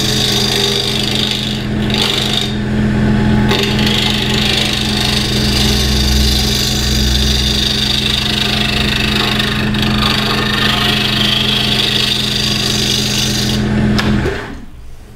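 Delta 46-460 wood lathe running with a steady hum while a flat scraper shaves a spinning wooden sphere, the cut giving a hiss of scraping wood: the final clean-up cut to bring the sphere true. The scraping breaks off briefly twice early on and stops shortly before the end, and the lathe is then switched off, its hum dying away.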